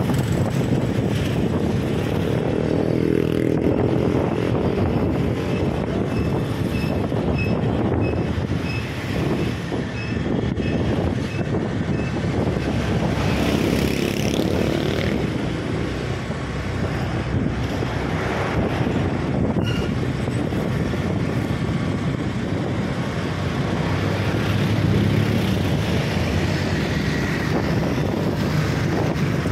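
Motorcycle engine running under way through traffic, its pitch rising and falling with speed, over a steady rush of wind and road noise. About six seconds in comes a run of short high beeps, about two a second, lasting some six seconds.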